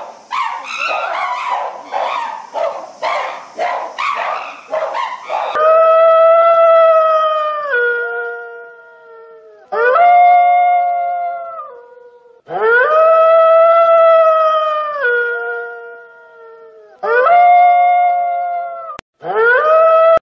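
A gorilla's rapid series of short, rough calls for the first five seconds or so, then a grey wolf howling: about five long, steady howls, each dropping in pitch at its end, with short pauses between.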